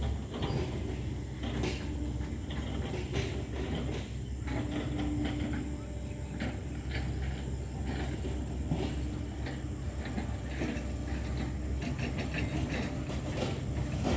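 Hitachi hydraulic excavator's diesel engine running steadily under work, with irregular clanks and cracks as it chips oil palm trunks.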